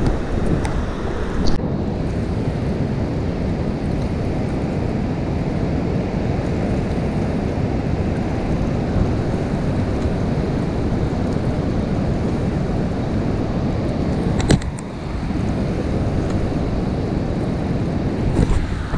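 Steady rushing roar of water pouring through a dam's open spillway gates, mixed with wind buffeting the microphone, broken by a couple of sharp clicks.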